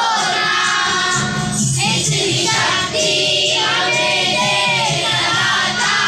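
A group of children singing a prayer together in unison, one continuous sung line with no breaks.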